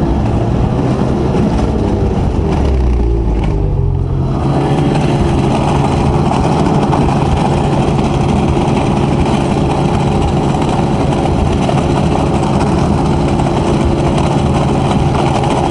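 Two-stroke Ski-Doo snowmobile engine, its pitch dipping and wavering in the first few seconds, then running at a steady speed.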